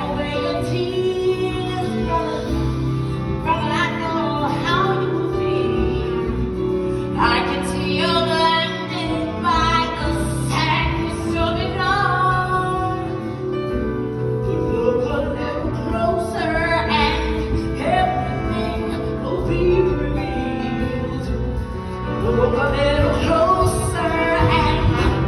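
Live stage-musical song: singing in long, held phrases over band accompaniment.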